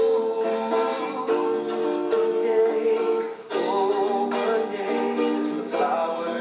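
Music: a song with plucked-string accompaniment and long held melody notes, with a brief drop in level about three and a half seconds in.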